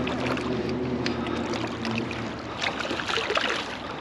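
Hooked striped bass splashing at the surface as it is reeled toward the bank, a few short splashes about three seconds in. A steady low hum runs under the first half and fades out about halfway.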